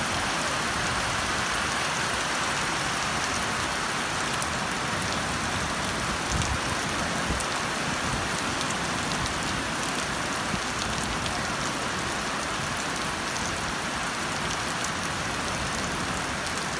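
Steady rain falling, mixed with the wash of waves breaking on the shore.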